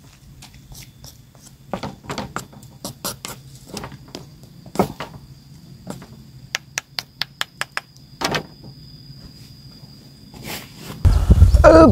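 Food-preparation handling: scattered light clicks and knocks of utensils, with a quick run of about ten clicks in the middle, then a loud low rumble near the end.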